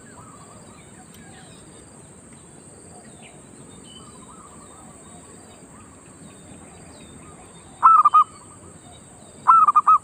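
Zebra dove cooing: two short bursts of quick rolling coo notes, each about half a second, about eight and nine and a half seconds in. Between them are fainter distant coos and small birds chirping, over a steady high hiss.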